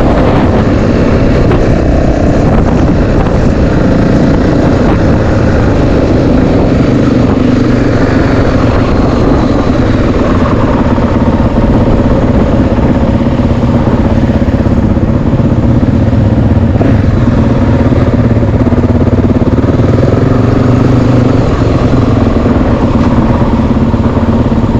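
Yamaha WR450F enduro bike's single-cylinder four-stroke engine running steadily and loud, its pitch drifting a little up and down with the throttle.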